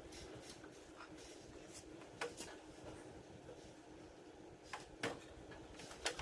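A few short, sharp clicks and knocks of hand work, about five in all, over a faint steady hiss.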